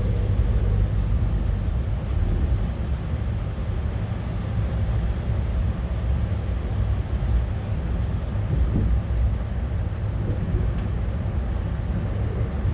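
Steady low rumble of a Moscow Central Circle ES2G Lastochka electric train in motion, heard from inside the carriage: wheels running on the rails with the car's running noise.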